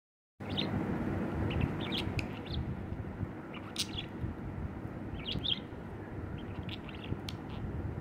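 Budgerigar chirping and warbling in short, scattered high bursts, with a few sharp clicks, over a steady low background noise.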